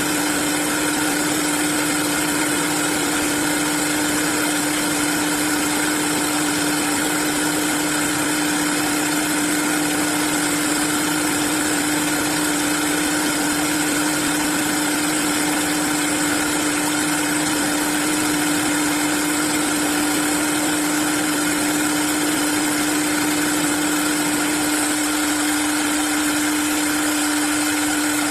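Industrial CNC wood-turning lathe running steadily, with one constant hum over an even whirring noise.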